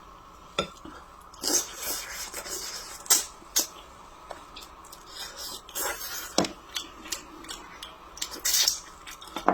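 Close-up eating sounds: chewing and mouth noises, with scattered short clicks and brief soft bursts.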